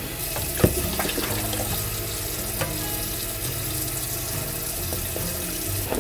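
Kitchen faucet running a stream of cold water into a saucepan of tea bags, splashing steadily, with a single sharp knock about half a second in. Later the rinsed tea is poured from the pan into a plastic pitcher.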